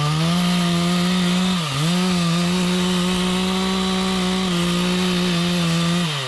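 Two-stroke chainsaw held at full throttle while cutting teak. Its pitch dips sharply once and recovers about two seconds in, then falls away near the end as the throttle is let off.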